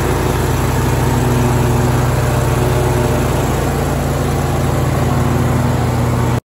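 Bradley 36-inch hydrostatic walk-behind mower's engine running steadily. The sound cuts off suddenly near the end.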